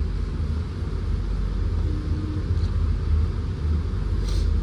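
Diesel passenger train heard from on board, its engine and running gear making a steady low rumble.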